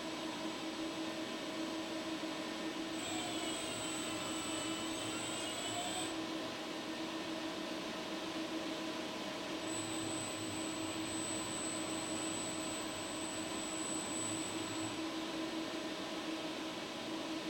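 ABB IRB 1600 industrial robot's servo motors and gearboxes whining as the arm swings between measurement poses, over a steady mechanical hum. A high-pitched whine comes in twice, and a few seconds in several whine tones glide up and down in pitch as the arm changes speed.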